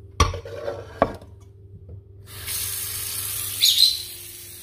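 A stainless steel pot knocks twice against the kitchen sink, then the tap is opened about two seconds in and water runs steadily into the pot. A short high chirp sounds over the running water near the end.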